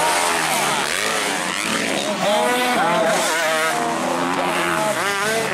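Several 250cc motocross bikes racing, their engines revving up and down through throttle blips and gear changes, several pitches overlapping.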